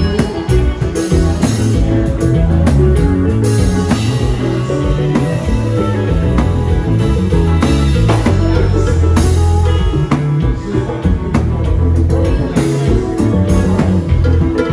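A live kompa band playing with an electric bass, electric guitar and drum kit, over a steady dance beat.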